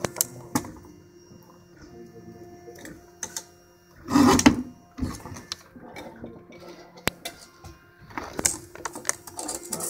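Metal sandwich guillotine being worked: small clicks and knocks as it is handled, then one loud slide-and-chop about four seconds in as the blade comes down through the sandwich, with more clattering near the end.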